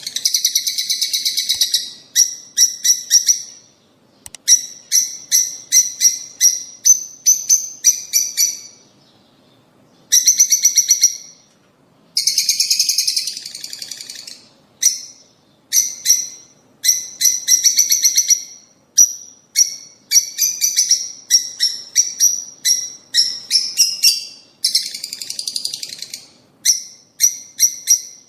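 Lovebirds chirping: rapid runs of sharp, high-pitched calls in bursts of a second or two, separated by short pauses.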